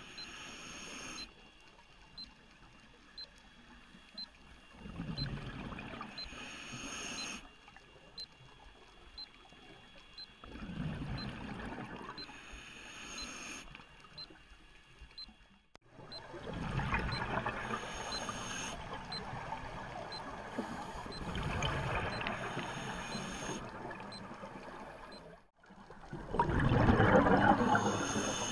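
Scuba diver breathing through a regulator underwater: a hiss on each inhale and a gurgling rush of exhaled bubbles, repeating about every five to six seconds, the loudest exhale near the end.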